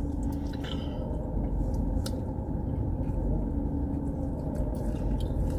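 Steady low rumble inside a car cabin with the engine running, with a few faint clicks.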